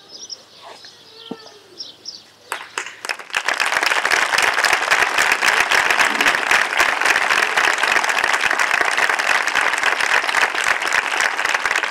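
A crowd applauding. A few scattered claps come about two and a half seconds in, and the full, steady clapping begins a second later. Before the clapping, faint bird chirps are heard.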